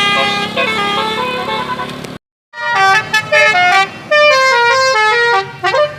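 Telolet musical horn (basuri-style multi-tone horn) on a vehicle playing a quick tune of stepped notes; the sound breaks off just past two seconds in, and a horn tune resumes with rapid note changes and a few rising slides near the end.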